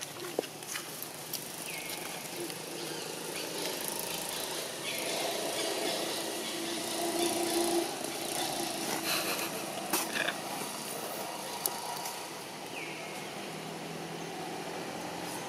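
Outdoor background noise: a steady hiss with a low motor hum that swells and fades in the middle, a few sharp clicks, and a short high call that comes back three times.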